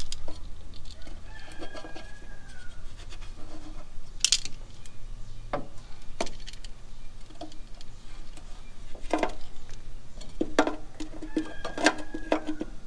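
Scattered light clicks and taps of a marker and a steel booster mounting plate against a car's sheet-metal firewall as the marker traces around the plate, with a short falling squeak about a second and a half in and again near the end.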